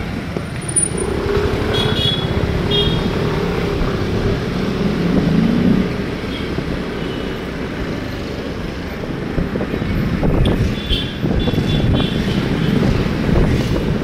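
Busy road traffic: vehicle engines running with tyre and road noise, and one engine's pitch rising about five seconds in. Short high horn beeps sound twice near the start and several times near the end.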